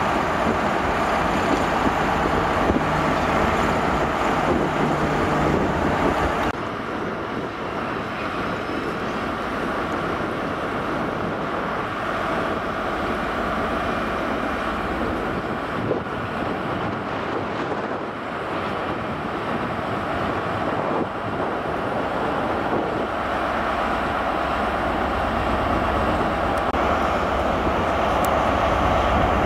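Diesel trains idling at station platforms, a steady engine drone with a low hum, and wind on the microphone. The drone drops a little about six seconds in.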